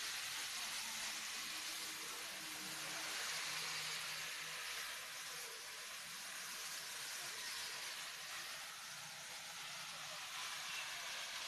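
Steady rushing noise of rough, storm-driven sea surf breaking on the shore.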